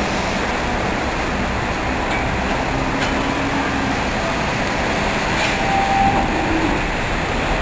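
A small wooden passenger coach of the Botchan train rolling slowly on tram rails as it is pushed by hand, its steel wheels rumbling, over a steady wash of rain and street noise.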